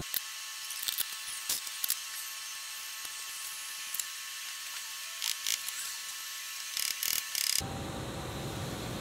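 Scattered sharp clicks and light taps, most likely from hands working on rear suspension parts under a lifted car, over a thin, tinny hiss. The fuller room sound comes back near the end.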